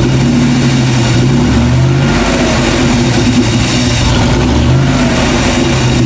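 Chevrolet 5.7-litre V8 running at a bad, uneven idle, its note shifting a couple of times. The engine is running lean from a big vacuum leak, found to be a leaking o-ring around the fuel injector assembly in the upper intake manifold, and is misfiring.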